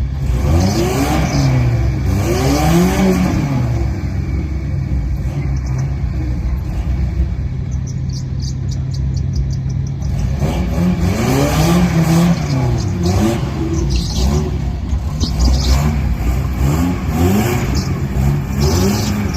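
A motor vehicle engine revving up and down over and over on top of a steady low running note, with a calmer stretch near the middle.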